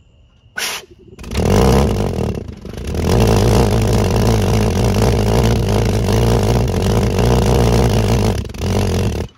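Valveless glass jam-jar pulse jet being lit at its lid hole. There is a short burst about half a second in, then it catches and runs with a loud, steady pulsing buzz for about eight seconds, dipping briefly near the start, before stopping abruptly.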